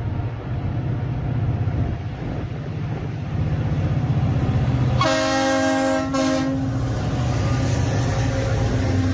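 Freight train passing over a railway bridge: a steady low rumble of the wagons on the rails, with one horn blast of just over a second about five seconds in.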